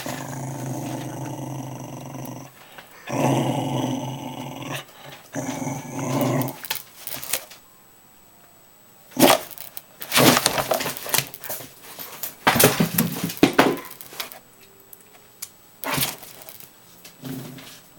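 Dog growling in long drawn-out spells through the first half, then a quiet pause and a flurry of sharp clicks and knocks.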